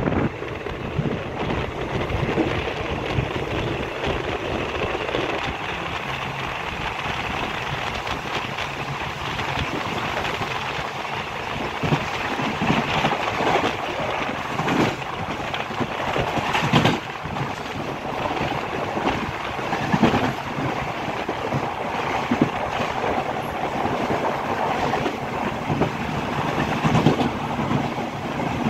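Passenger train carriage rolling along the rails, heard through an open window: a steady rumble and rush of air, broken every so often by sharp clacks of the wheels over rail joints and points.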